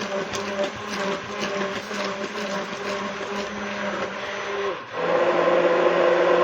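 Electric hand blender running in cake batter, a steady motor drone with rapid clicking and rattling against the bowl. About five seconds in it dips for a moment and comes back louder and steadier.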